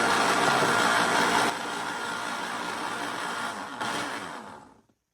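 Countertop blender running, whirring through a liquid mix of eggs, milk, lard and salt. It is steady, drops in level about one and a half seconds in and again near four seconds, then dies away to silence shortly before the end.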